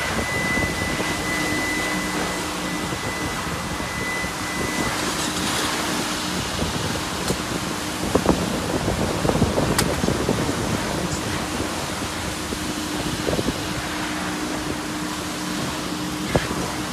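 Steady rushing noise of self-service car wash bay machinery with a low hum, a thin high whine during the first few seconds, and a few sharp clicks about eight, ten and sixteen seconds in.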